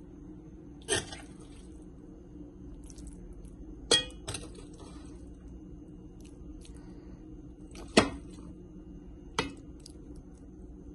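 Metal spoon knocking and clinking against a metal cooking pot as minced meat is spooned out in layers onto rice: five sharp knocks a few seconds apart, the loudest about eight seconds in, over a low steady hum.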